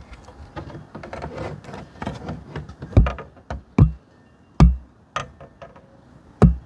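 Hard plastic parts being handled and knocked about: four heavy knocks, the last near the end, with lighter clicks and rattles between them.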